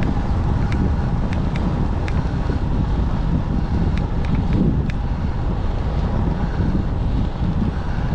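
Wind buffeting the microphone of a GoPro on a moving road bike, over a steady low rumble, with a few scattered small clicks.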